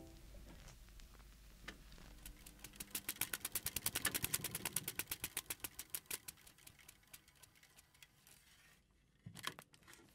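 Rapid mechanical clicking, about eight clicks a second, that swells in the middle and then slows and fades, with a few sharper clicks near the end.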